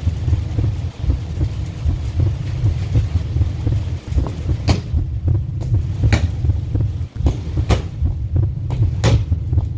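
Wind buffeting the microphone with a steady low rumble. In the second half, four sharp knocks about a second and a half apart: a football being kicked.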